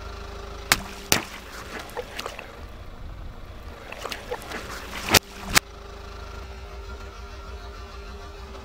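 Water balloons bursting under a car tyre: four sharp, loud pops, two near the start and two around the middle, with smaller splashes and crackles between them. Under and after the pops the car's engine runs with a steady low hum.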